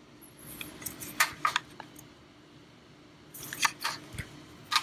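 A handful of small, sharp clicks and taps in two short clusters, about a second in and again past three seconds, with one more near the end, over a faint steady hum.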